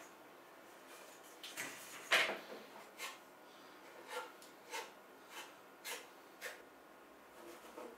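A putty knife scraping and tapping as it takes filler from a tin and spreads it on a 3D-printed plastic boat hull: a series of short scrapes and clicks, roughly one every half second, the loudest about two seconds in.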